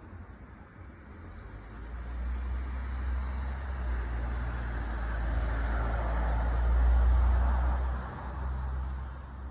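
A road vehicle passing by: a low rumble with a hiss that swells from about two seconds in, peaks around seven seconds, then drops away.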